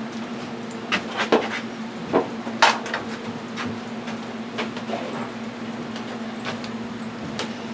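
About seven scattered metal knocks and clinks of parts and tools being handled while working on a zero-turn mower, over a steady low hum.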